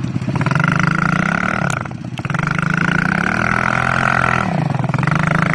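Small off-road vehicle engine, from a buggy or a 125cc ATV, revving: the pitch climbs and drops off twice, about two seconds in and again near four and a half seconds, then holds steady.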